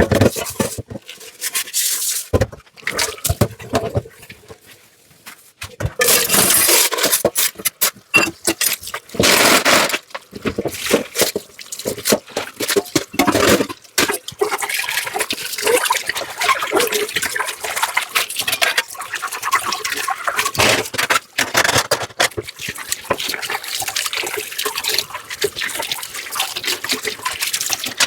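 Tap water running and splashing in a kitchen sink while dishes are washed, with scattered clinks and knocks of dishware. Quieter for a few seconds near the start, then the water runs steadily from about six seconds in.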